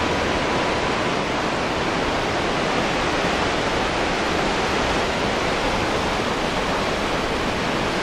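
Ocean surf washing up over wet sand at the water's edge: a steady, even hiss of breaking and receding waves.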